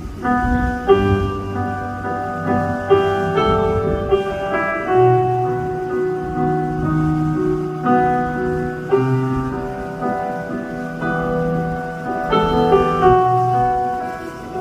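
Live band music without singing: piano chords struck over sustained low bass notes.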